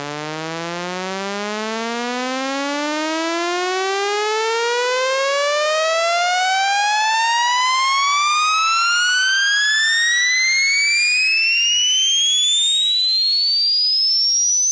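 Electronic test-tone sweep, a buzzy tone with overtones gliding steadily upward in pitch from a low hum to a high whistle, getting louder over the first half and then holding level.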